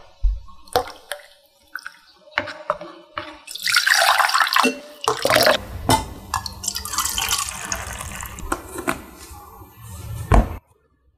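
Milk and cream being poured, a steady run of liquid that stops abruptly near the end. A few light knocks of the saucepan and glass cups come before it.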